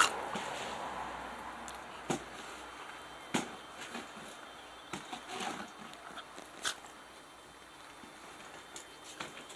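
A Basenji and a Pointer play-fighting: scattered scuffling and sharp knocks of bodies and paws, a second or more apart, with a busier flurry about five seconds in.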